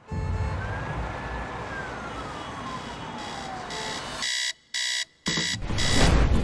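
Street traffic noise with one long tone gliding slowly downward, like a distant siren. Then a digital alarm clock beeps three times in quick succession, and a louder rush and thud follows as it is shut off.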